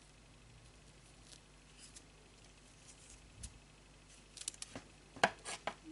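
Hands handling a crocheted poinsettia with wired petals: faint rustles, then a quick run of small sharp clicks and rustles about four seconds in.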